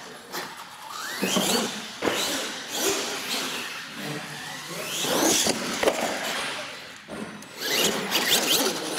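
Radio-controlled monster truck driving on a concrete floor, its motor whining up in rising sweeps as the throttle is applied, about a second in and again around the middle.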